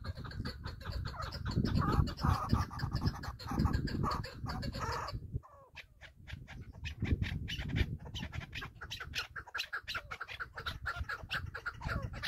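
A bird calling in rapid runs of short repeated notes, several a second, that break off briefly about five seconds in and then resume. Low rumbles come and go under the calls in the first half.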